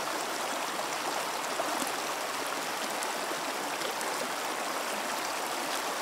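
Shallow mountain stream running over a rocky bed: a steady rush of water.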